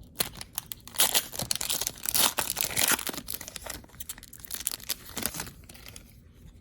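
Trading card pack wrapper being torn open and crinkled: irregular crackling tears, loudest over the first few seconds and dying down near the end.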